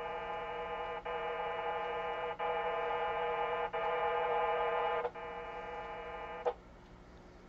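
VARA FM sound-card modem sending a series of drive-level calibration packets: a chord of many steady tones in segments of about a second and a quarter, each broken by a short click-like gap. It stops about six and a half seconds in.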